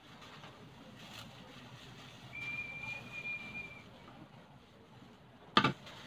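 A thin, steady whistle-like tone held for about a second and a half, then a single sharp knock near the end over a low background.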